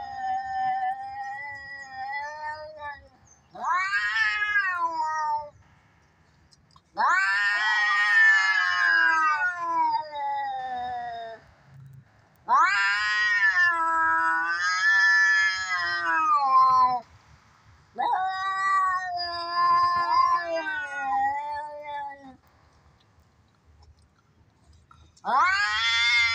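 Cats yowling in a fight: a series of long, wavering caterwauls, each rising and falling in pitch over two to five seconds, with short pauses between them.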